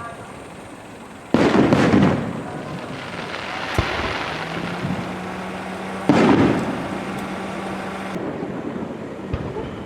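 Aerial fireworks shells bursting overhead: two loud booms about five seconds apart, each rumbling away over a second or so, with a couple of short sharp cracks in between.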